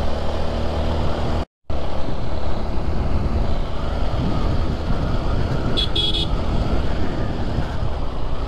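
Motorcycle running along at road speed with steady wind rush over the microphone. The sound cuts out completely for a moment about a second and a half in. About six seconds in there is a short horn toot.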